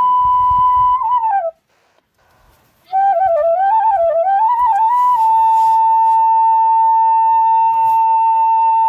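Background music: a solo flute melody. It plays a held note, breaks off for about a second and a half, then plays a wavering, ornamented phrase that settles into a long held note.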